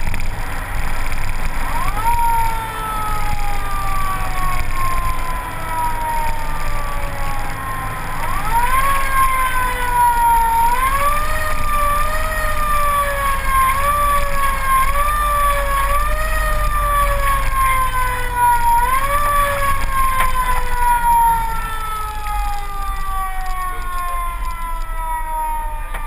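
Fire truck siren wailing: it winds up about two seconds in and falls slowly for several seconds, then comes in short repeated rises about once a second, then winds up again and falls slowly near the end. A low engine rumble runs underneath.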